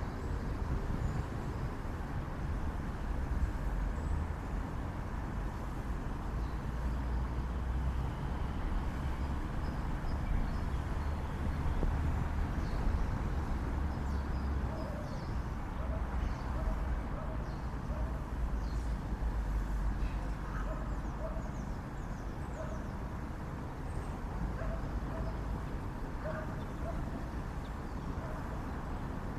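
Outdoor town ambience: a steady low rumble, with short faint calls repeating roughly once a second from about halfway through.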